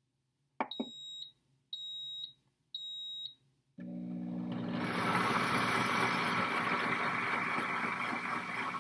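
Cooking blender beeping three times, about a second apart, then its motor starting about four seconds in and rising within a second to a steady whir as it blends hot white chocolate sauce with the chocolate chips just added to it.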